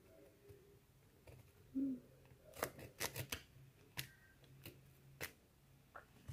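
Ballpoint pen drawing on cardboard: faint, short, irregular scratching strokes from about two and a half seconds in, over a faint low hum.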